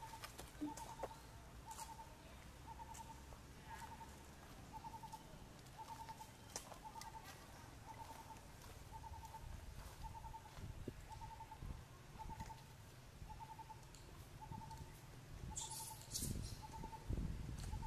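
A bird calling faintly: one short trilled note repeated steadily about once a second.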